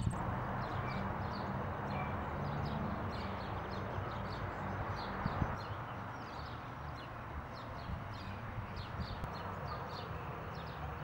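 Small birds chirping and singing in quick, short repeated notes, over a steady low hum and a soft background hiss.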